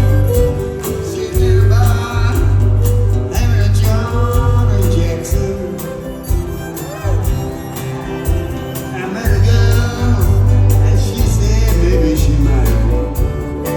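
Live country-style band music with fiddle and guitar over a heavy, pulsing bass.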